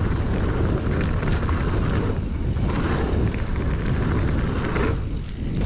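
Wind rushing over the microphone with the noise of a mountain bike's tyres rolling over a dirt trail at riding speed, steady throughout.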